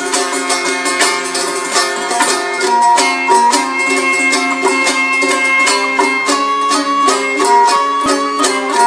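Traditional Turkmen instrumental music: two dutars strummed in a fast, even rhythm, with a held, bowed gyjak melody coming in over them about three seconds in.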